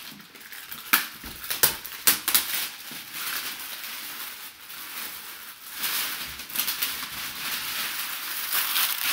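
Plastic shrink-wrap being torn off a cardboard box, with several sharp snaps in the first two seconds, then steady plastic crinkling as a helmet in a clear plastic bag is handled and lifted out.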